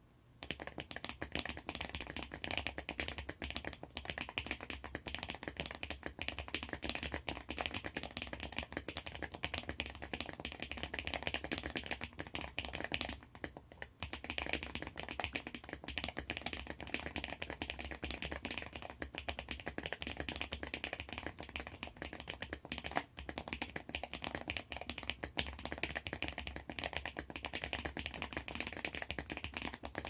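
Fast, continuous typing on a handwired mechanical keyboard: lubed Cherry MX Brown switches with Boba U4T stems in a 3D-printed plate, the whole board taped to cardboard, the keys clacking densely. It begins about half a second in, with a brief lull about halfway through.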